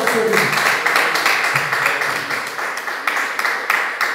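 Small congregation applauding: many overlapping hand claps that gradually fade.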